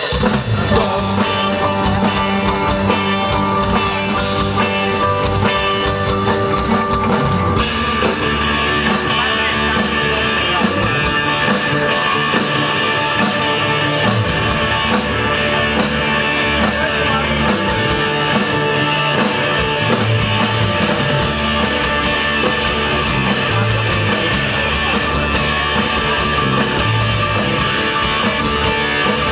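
Rock music played by a band with electric guitar and drum kit, at a steady beat. About seven seconds in, the drums and cymbals come in fuller.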